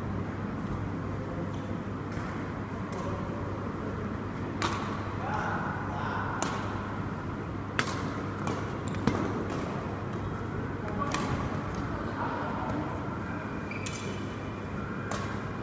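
Badminton rackets striking a shuttlecock in a doubles rally: a run of sharp pops a second or two apart, over a steady low hum.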